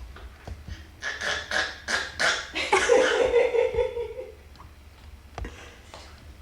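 A person's voice: a quick run of short, breathy huffs, about three a second, then one drawn-out voiced sound lasting about a second and a half.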